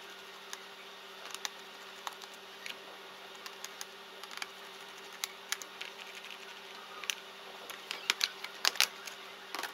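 Scattered light clicks and taps of hands and a tool working on the plastic underside of a ThinkPad laptop, taking off its bottom cover, with a quick run of louder clicks near the end. A faint steady hum runs underneath.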